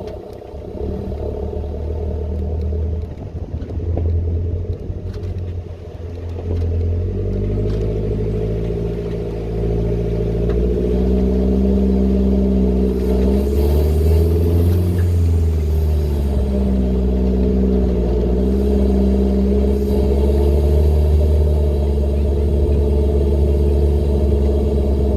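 Holden Colorado's engine and air intake working under load while towing a caravan: a steady, loud drone whose pitch dips and rises around the middle.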